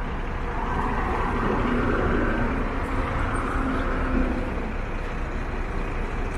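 Ashok Leyland coach's diesel engine running close by, a steady low sound with no change in pace.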